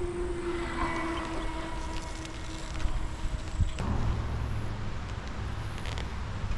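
Motor traffic passing close by, heard from a moving bicycle: a steady engine tone fades out about four seconds in and gives way to a low engine rumble.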